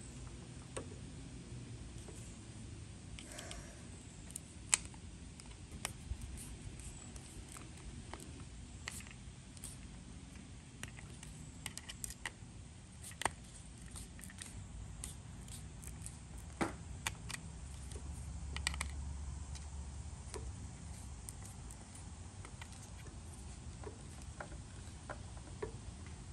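Scattered small clicks and taps of a screwdriver on the screws and plastic housing of a GFCI plug as it is assembled onto a power cord.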